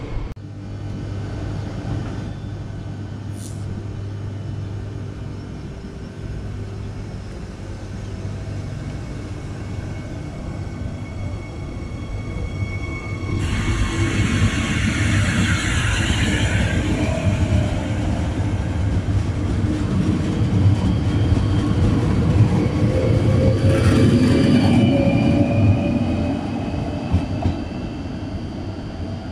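Régio2N double-deck electric train moving along the platform with a steady low hum and rumble. There are two bursts of hissing, one about halfway through and a shorter one later, and a motor whine that rises in pitch as the train pulls away.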